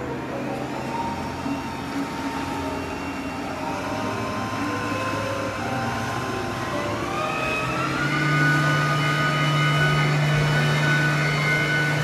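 A tour boat's motor running steadily. About seven seconds in its pitch rises, and from then on it runs louder with a stronger low hum, as the boat picks up speed.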